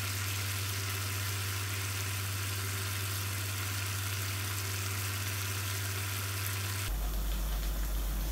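Coconut milk sizzling and bubbling in a wok as it cooks down, far enough reduced that its oil is separating and the curds for latik are forming. A steady low hum lies underneath, and about seven seconds in the sizzle drops away as the hum changes.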